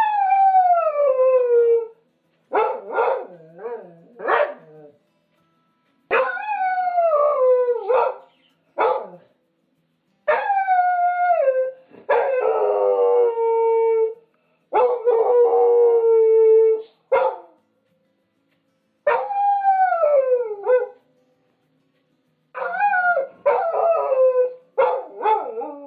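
A dog howling: a string of long howls, most sliding down in pitch over about two seconds, with short yips between some of them and one trembling, wavering howl near the middle.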